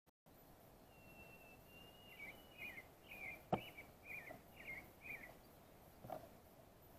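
Faint songbird song: a long thin steady whistle, then a run of about eight short, quick warbled notes. A single sharp click sounds about halfway through, and a softer knock comes near the end.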